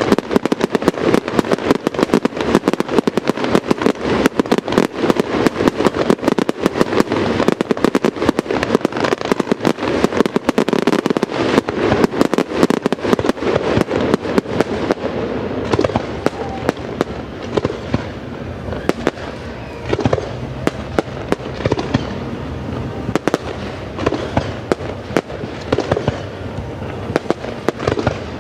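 Fireworks display going off: a dense, rapid run of bangs and crackles, thinning out a little about halfway through into more separate reports over a continuous rumble.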